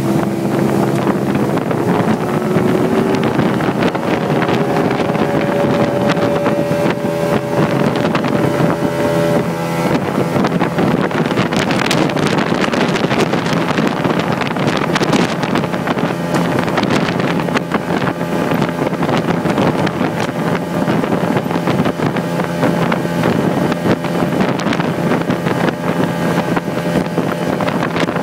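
Johnson 150 outboard motor pushing the boat at speed, its pitch rising over the first ten seconds or so and then holding steady. Wind rushes over the microphone throughout.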